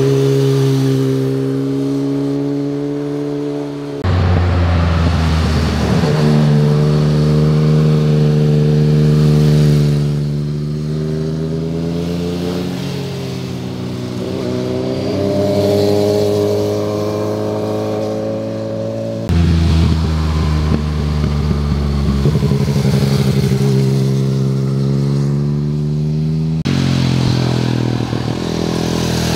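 Motorcycle engines running under load through a tight bend, several bikes one after another. Each engine note holds steady, then rises and falls in pitch as the throttle is worked. The sound switches abruptly from one bike to the next a few times.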